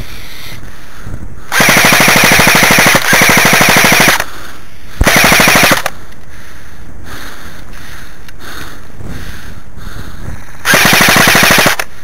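Airsoft rifle firing on full auto in four rapid bursts of about a second each, the first two almost back to back, a third about five seconds in and the last near the end.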